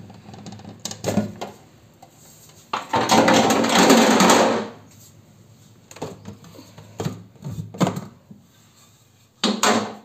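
Clear plastic bottle rack being worked loose and lifted out of an LG refrigerator door: scattered plastic knocks and clicks, with one loud, noisy clatter of about two seconds near the middle and a few more knocks near the end.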